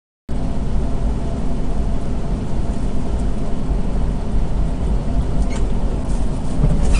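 Steady low rumble of a semi-truck cruising on the highway, engine and road noise heard from inside the cab. It starts abruptly after a moment of silence.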